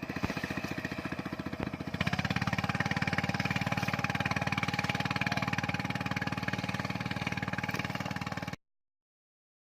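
Boat engine running with an even, rapid firing beat, revving up about two seconds in and then holding steady. It cuts off abruptly near the end.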